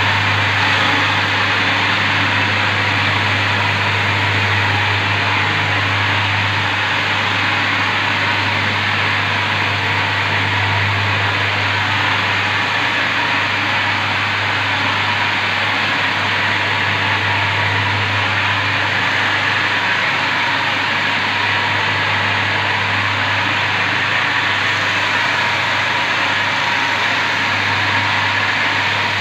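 Arm-mounted marble polishing machine running steadily, its spinning polishing pad grinding across a wet marble slab: a steady low motor hum under a continuous hiss.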